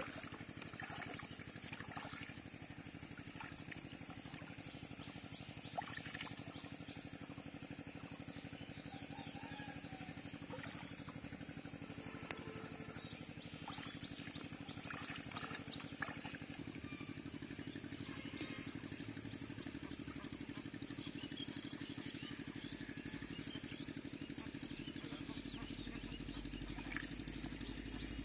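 A steady low motor drone with water splashing and sloshing now and then as legs wade through shallow, flooded paddy water.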